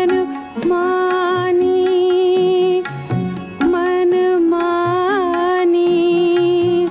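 Indian classical-style music: a melody of long held notes, each a second or two long, with small ornamental turns and brief breaks between phrases.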